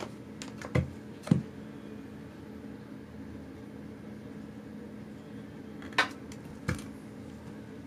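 A few short knocks and thumps from bare feet stepping on a glass bathroom scale over a wooden floor: two about a second in, and two more near six seconds.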